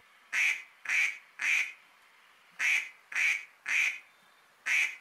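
Duck quacks as a comic sound effect: two runs of three short quacks about half a second apart, then a seventh quack starting near the end.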